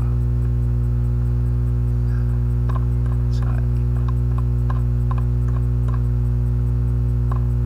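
Loud, steady electrical mains hum: a constant low buzz with its overtones, picked up in the recording. Scattered faint short clicks sound in the second half.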